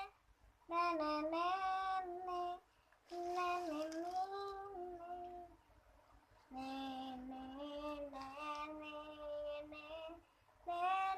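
A child's high voice singing alone, unaccompanied, in short held phrases with brief pauses between them.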